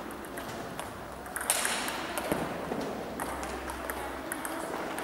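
Table tennis balls clicking off paddles and tables in quick, irregular strikes, from more than one table in play at once. About a second and a half in, a haze of background hall noise grows louder under the clicks.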